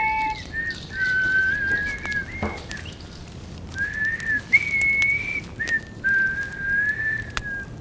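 Someone whistling a slow melody in long held notes, one pitch at a time, gliding between them.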